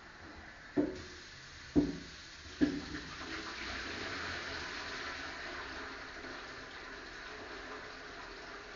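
Three knocks of a pot against the sink a second or less apart, then a kitchen tap running steadily into the pot as food is rinsed in it.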